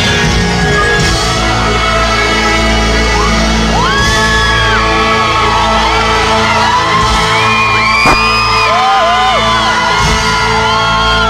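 Loud concert music over the PA with a crowd of fans screaming around the recording phone, several high shrieks gliding up and down over the music. A sharp knock sounds about eight seconds in.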